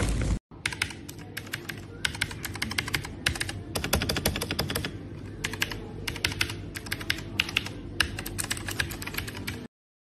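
EGA TYPE CMK1 mechanical keyboard being typed on: quick runs of sharp key clicks with short pauses between them, stopping abruptly near the end. A brief rumble of outdoor noise cuts off just before the typing starts.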